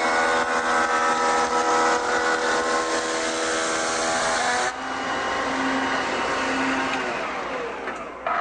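Shaper cutting a molding profile along the edge of a board, a loud steady machine whine. The cutting sound drops away a little under five seconds in. The motor then winds down with a falling pitch.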